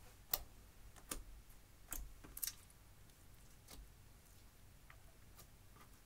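Clear slime mixed with crushed eyeshadow being pressed and kneaded by hand, giving scattered sharp, wet clicks and pops as air pockets burst: about half a dozen, the loudest just after the start and several close together around two seconds in.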